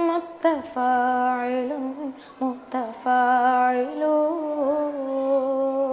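A boy's unbroken voice chanting the Arabic prosodic foot 'mutafāʿilun' unaccompanied, in long held notes with short breaks between them, setting out the poem's metre before he recites the verses.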